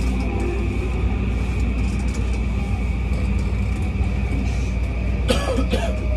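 Running noise inside a JR East E235 series 1000 electric train car: a steady low rumble of wheels on rail with a steady high tone over it, and a brief higher-pitched squeak about five seconds in.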